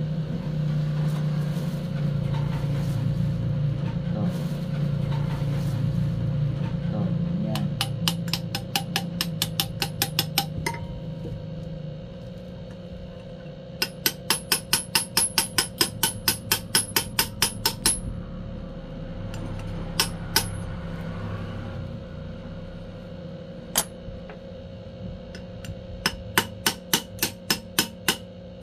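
Quick, evenly spaced metallic taps, about five a second, in three runs of a few seconds each, over a steady low hum. They are typical of a bearing being tapped into an aluminium motorcycle flange hub.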